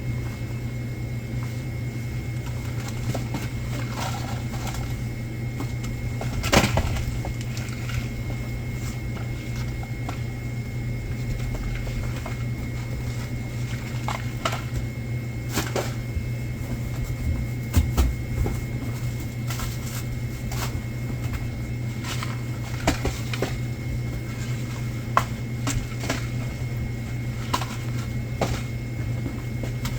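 Stock being handled while a convenience store is restocked: scattered knocks, clicks and clatter of goods and boxes being moved and set down. The loudest knocks come about six and a half seconds in and around eighteen seconds in, over the store's steady low machine hum.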